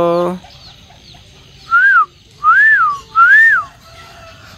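The end of a long, steady honk, then three short whistled notes about half a second each, each rising and falling in pitch.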